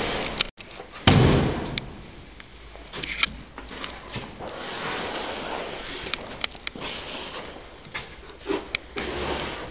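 Scattered knocks, clicks and rustling, with a heavy low thump about a second in. The sound drops out for an instant just before the thump.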